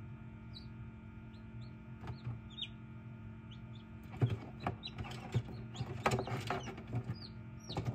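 Newly hatched chicks peeping in short high calls over the steady hum of an egg incubator. From about four seconds in comes a run of light taps and scuffs, which is the loudest sound.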